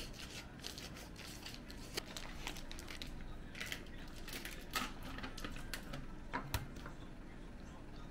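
Scattered light clicks, taps and crinkles of kitchen handling: a knife working at a plastic tofu pack and knocking on a cutting board as it is set down and picked up, with a few sharper ticks about five and six and a half seconds in.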